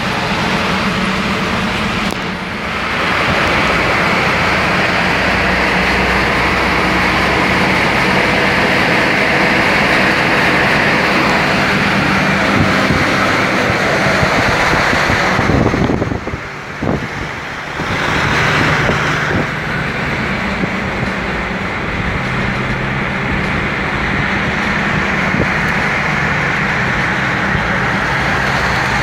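Steady road noise of a car at highway speed, tyre and wind hiss over a low engine drone, heard from inside the moving car. The noise dips briefly about halfway through.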